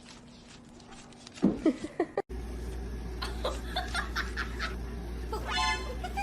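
Person laughing in short bursts. About two seconds in, the sound cuts abruptly to another clip with a steady low hum and more short bursts of laughter, with a brief pitched call near the end.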